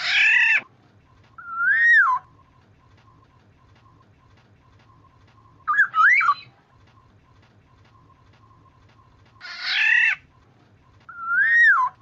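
Black-naped oriole (kepodang) calling: a harsh, raspy call followed by a fluting whistle that rises then falls, a quick double whistle in the middle, then the raspy call and fluting whistle again.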